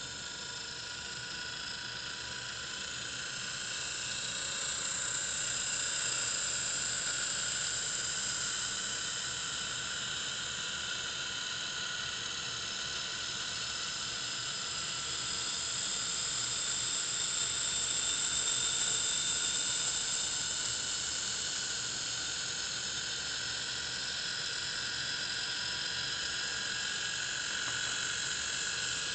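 Small electric motor and gear train spinning a machined aluminium gyro wheel at high speed: a steady high-pitched whine made of several tones, growing a little louder as the wheel speeds up.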